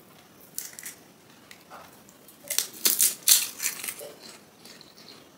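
Crisp, hollow puri shells cracking and crunching close to the microphone. A few light crackles come about half a second in, then a burst of loud crunching around the middle as a whole pani puri is eaten.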